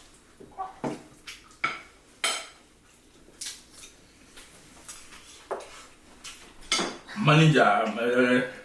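Cutlery and dishes clinking at a dinner table, a dozen or so separate sharp clinks spread over several seconds as people serve themselves and eat. A voice speaks near the end.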